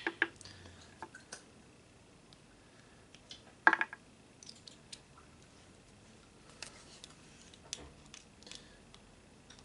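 Scattered metallic clicks and taps from a small hand ratchet and Torx bit working tight screws on a cast-aluminium throttle body, with one sharp clack a little under four seconds in.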